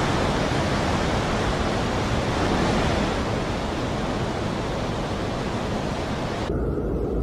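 Strong blizzard wind blowing on the microphone, a steady rush of noise. About six and a half seconds in it changes abruptly to a duller, lower rush.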